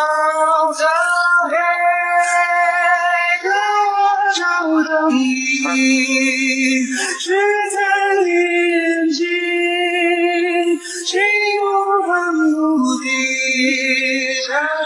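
A woman singing a slow melody in long held notes that waver with vibrato, with hardly any accompaniment to be heard.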